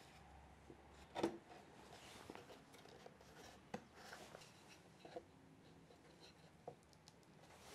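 Faint handling of wood: small knocks, taps and rubbing as thin pine slats and a wooden dowel are moved and pressed against a thin MDF backing board. One sharper knock about a second in.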